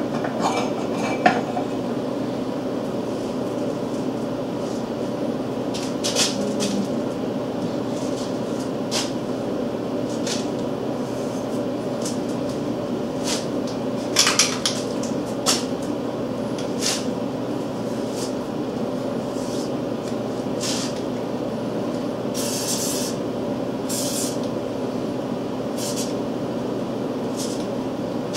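Steel parts and hand tools clinking and knocking now and then as the drill column's fittings are handled, over a steady low hum.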